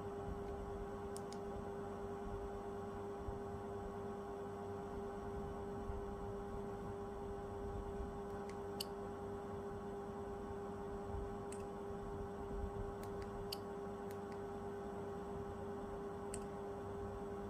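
Steady background hum with a constant pitched tone. About half a dozen faint, sharp clicks fall irregularly through it as a smartphone is handled and unlocked by fingerprint.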